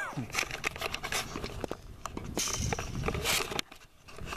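Camera handling noise: irregular clicks, knocks and rustling as the camera is moved and tilted about, with a short falling sweep at the very start.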